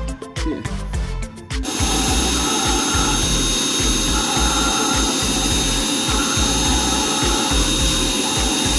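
Husqvarna K970 two-stroke cut-off saw running at full throttle, starting about two seconds in as a steady, loud, rasping cutting noise with a high whine held through it.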